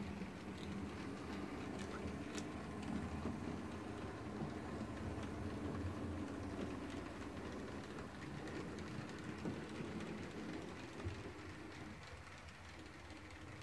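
H0-scale model train running along the layout track: a steady motor hum with wheel rumble on the rails, growing fainter near the end.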